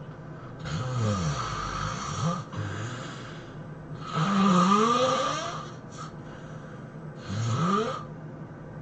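A person snoring loudly and harshly, about four snores in a row. Each is a rough rasp whose pitch slides up and down, and the longest and loudest comes about halfway through.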